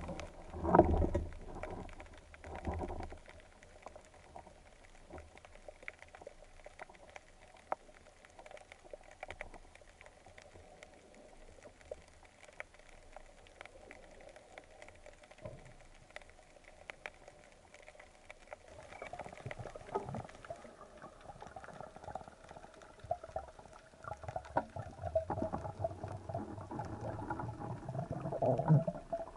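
Water heard underwater through a camera housing: splashing and bubbling near the surface at the start, then a quiet stretch of scattered faint clicks, then a growing rush and bubbling of water in the last ten seconds as the diver swims down.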